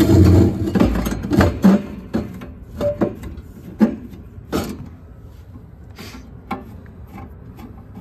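Irregular clicks and knocks of hands working on wiring and sheet metal in a rooftop unit's furnace compartment, loudest in the first two seconds together with a low rumble, then sparser taps.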